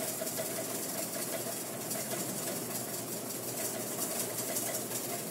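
Wire whisk beating egg yolks in a stainless steel bowl over simmering water, a rapid steady run of scraping ticks as the yolks are cooked into a foamy sabayon for hollandaise. A steady hum lies underneath.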